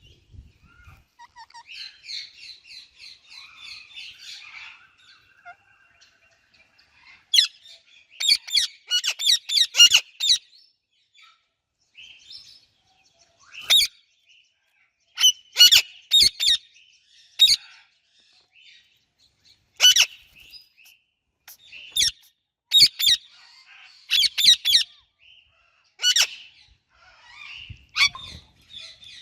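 Indian ringneck and Alexandrine parakeets chirping: a soft run of quick, high chirps for the first few seconds, then loud, sharp calls in short bursts every second or two.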